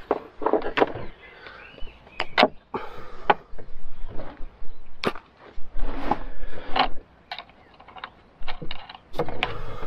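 Hand tools and battery cables being handled at leisure battery terminals: an irregular run of sharp clicks, clinks and knocks with quieter gaps between.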